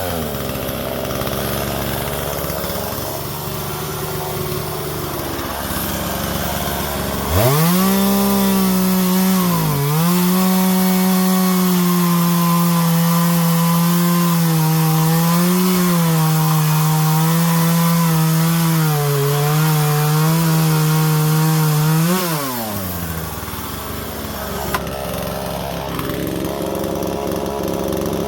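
Husqvarna 120 Mark II two-stroke chainsaw idling, then revved to full throttle about seven seconds in and held there, cutting through wood for about fifteen seconds with the engine pitch dipping briefly under load. It then drops back to idle.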